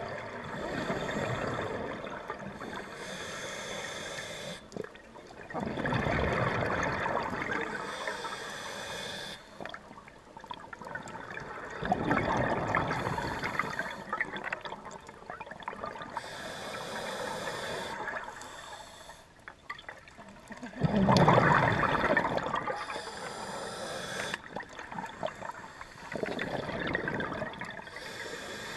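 Scuba diver breathing through a regulator underwater: a hissing inhale, then a loud gush of exhaled bubbles, repeated over several breaths, the loudest exhale about two-thirds of the way through.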